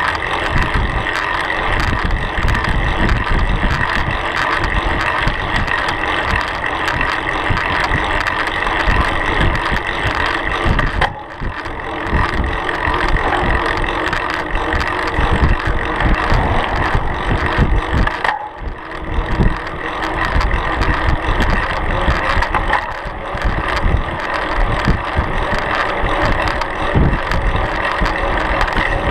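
Bicycle riding on asphalt: the knobby fat-bike tyre hums on the pavement while wind buffets the bike-mounted camera's microphone. The noise dips briefly twice, about eleven and eighteen seconds in.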